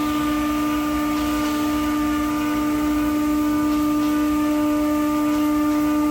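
Spindle motor of a CNC router wood-cutting machine running at a steady speed, a constant whine with a steady noise underneath.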